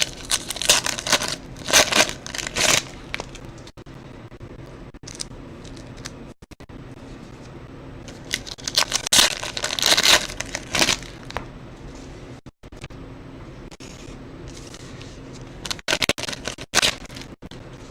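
Foil card-pack wrappers of 2014 Prizm football being torn open and crinkled, in three bursts: at the start, about halfway through, and near the end.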